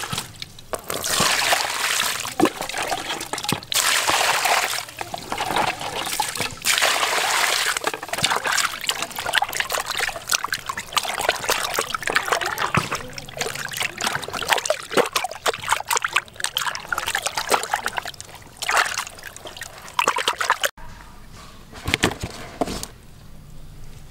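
Water sloshing and splashing in a plastic basin as a large fish is rubbed and washed clean by hand, in irregular bursts. About 21 s in the splashing stops abruptly and only a faint, quieter background remains.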